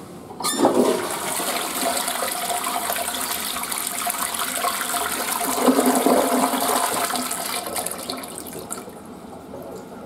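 Western-style flush toilet flushing: a click about half a second in, then rushing, swirling water that runs for about seven seconds and dies away near the end.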